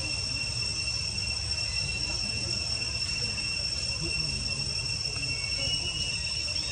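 Steady high-pitched insect drone, held on an unbroken tone, over a continuous low rumble.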